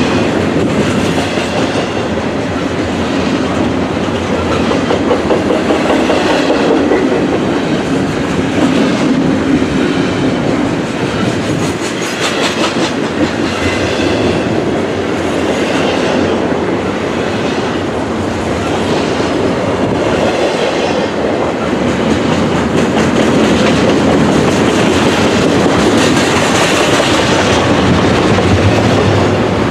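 Double-stack intermodal train's well cars rolling past close by: a loud, steady rumble of steel wheels on rail, with wheel clatter recurring every second or two as each car goes by.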